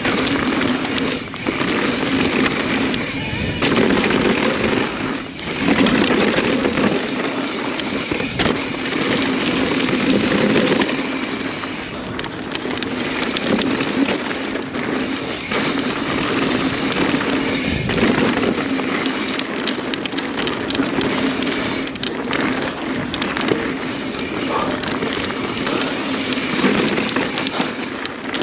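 Mountain bike being ridden down a dirt trail: a steady rush of wind over the microphone and tyres on dirt, with the bike rattling over bumps and a few sharp knocks.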